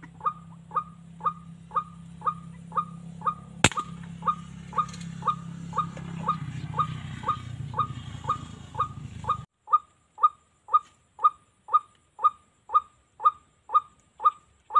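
White-breasted waterhen call repeated about twice a second in a steady, even rhythm. A single sharp crack of an air-rifle shot comes about four seconds in.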